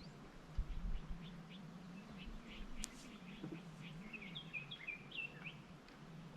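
Small birds chirping, faint and scattered, with a quicker run of chirps about four to five seconds in.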